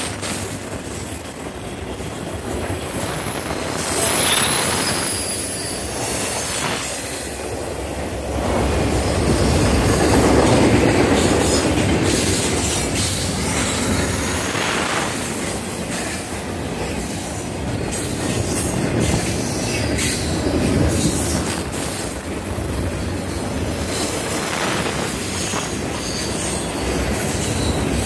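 Double-stack intermodal freight train of container-laden well cars rolling past: a steady rumble of steel wheels on the rails with clicks over the rail joints. Thin, high wheel squeal comes and goes as the wheels work through the curve.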